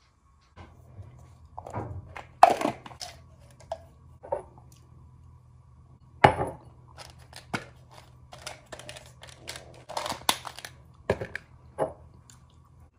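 Plastic supplement bottles being handled on a stone countertop: a string of sharp clicks and clatters as caps are opened and pills taken out, the loudest about two and a half seconds in and again about six seconds in, over a low steady hum.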